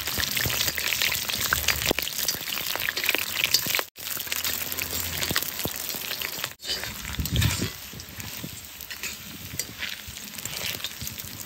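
Hot oil sizzling and crackling as vegetable pieces fry in a cast iron kazan being seasoned, with a metal skimmer stirring and scraping against the iron. The sizzle drops out briefly twice and is a little quieter in the last few seconds.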